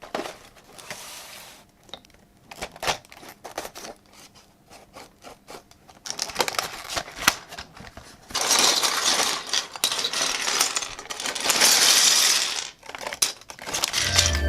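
Hard plastic keycaps clicking and clattering as they are handled, scattered clicks at first, then dense rattling in two long stretches.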